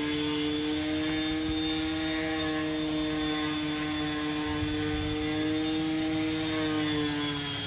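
A steady motor drone with a clear pitch and a high whine above it; the pitch wavers slightly and drops a little near the end.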